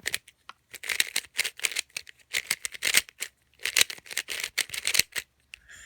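GuoGuan Yuexiao 3x3 speedcube being turned quickly in the hands: runs of rapid plastic clicking and clacking as the layers snap round, turning very nicely.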